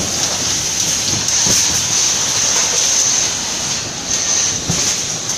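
Industrial inkjet coding printer and the production-line machinery around it running steadily: a constant high hiss over a mechanical rumble, with a few faint clicks.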